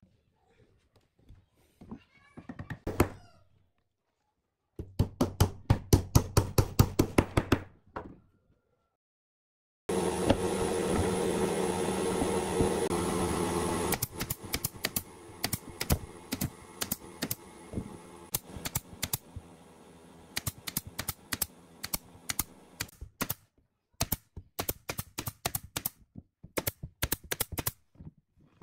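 Pneumatic nail gun firing nails into pine boards: many sharp shots, some single and some in quick runs. For a few seconds before the shots a steady loud machine noise runs, then stops suddenly.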